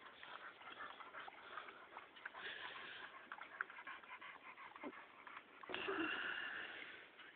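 A harrier hound and a pit bull mix play-fighting: a scatter of soft clicks and scuffles, then one dog gives a high whine lasting about a second, a little before the end.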